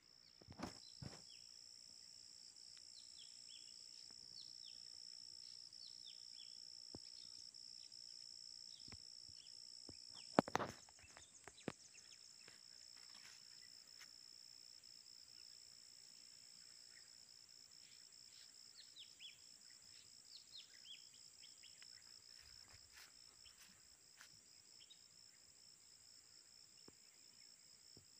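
Steady high-pitched drone of insects in forest, with short falling bird chirps now and then. A few sharp knocks break in, the loudest about ten seconds in.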